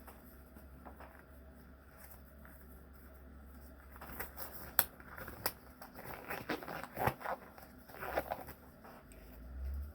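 Low room hum, then from about four seconds in a run of light clicks, ticks and brief rustling, like cards or packaging being handled on a table.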